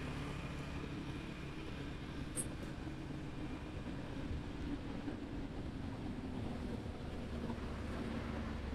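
A steady low engine hum, with one brief high chirp about two and a half seconds in.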